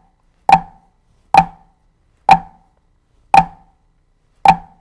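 Drumsticks striking a drum practice pad in slow flams, alternating right and left hands, five sharp strokes about a second apart that slow slightly toward the end.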